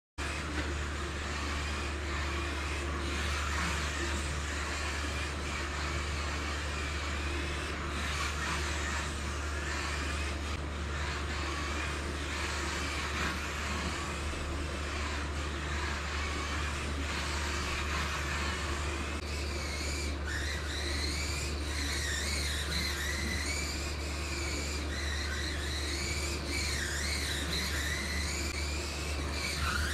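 Electric motor and gears of a Kyosho Mini-Z RC car whining over a steady hiss and low hum. The whine gets clearer about two-thirds of the way through, rising and falling in pitch again and again as the car speeds up and slows.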